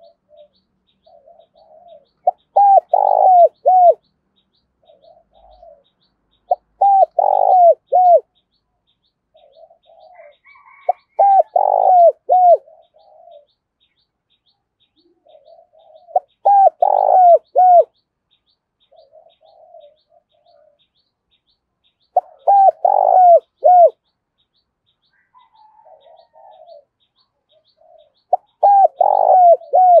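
Spotted dove giving its aggressive challenge coo, the call used to provoke a rival. Six phrases come at a steady pace about five seconds apart, each a few soft notes followed by a short run of loud, clipped coos.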